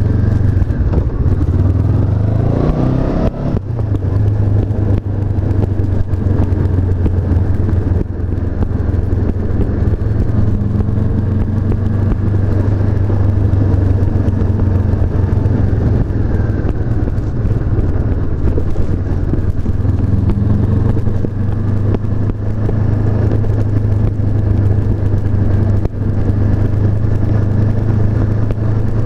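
Honda CB500F's 471 cc parallel-twin engine running on the move. Revs rise over the first few seconds, then it runs steadily.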